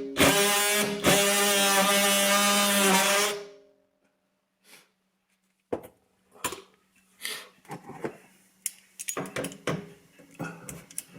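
A power tool run in short trigger bursts, a steady motor whine that stops and restarts a few times and then winds down about three and a half seconds in, used to work loose a stuck, corroded sink drain fitting. After it, scattered light knocks and clinks of handled metal parts.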